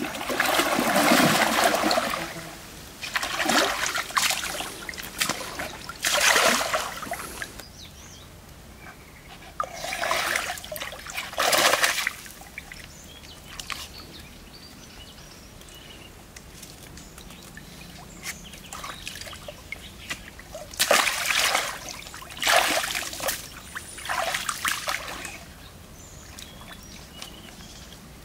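Stream water splashing and sloshing in several loud bursts as a person wades and moves about in it, with quieter stretches between.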